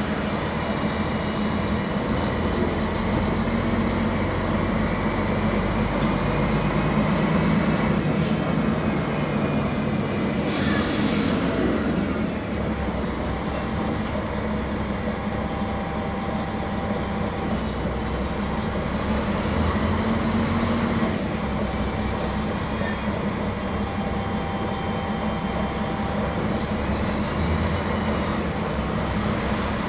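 Mercedes-Benz OM-457 LA inline-six diesel of an O500MA articulated bus running steadily. A brief hiss comes about ten seconds in.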